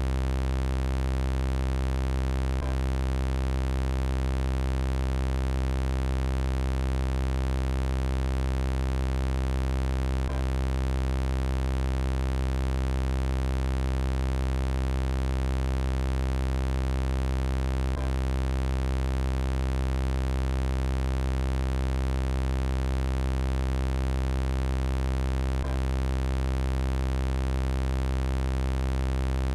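Synthesized robot-voice sound effect held as a steady electronic buzzing drone of many even tones, strongest in the low range, with no change in pitch or level. A faint click comes about every eight seconds, where the loop repeats.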